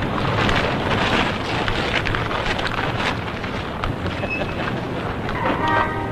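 Outdoor ambience: wind noise on the microphone over a steady hum of city traffic.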